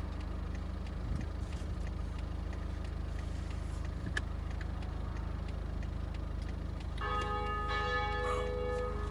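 Church bell begins ringing about seven seconds in, each stroke ringing on with several clear overtones, over a steady low rumble.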